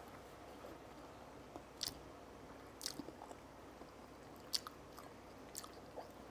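A person chewing food quietly, with a few short wet mouth clicks spread through.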